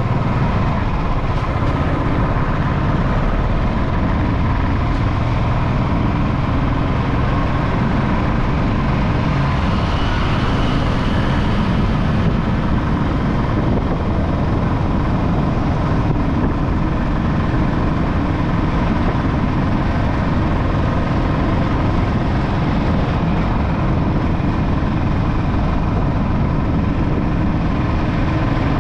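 Steady engine and road noise of a motorcycle riding through city traffic, with no pauses.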